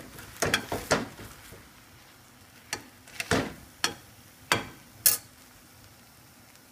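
Slotted spatula knocking and scraping against a frying pan as an omelet is turned: a quick cluster of taps in the first second, then single knocks spread over the next few seconds.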